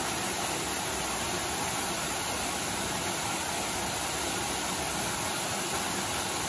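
Steady rush of a waterfall pouring into a rock pool.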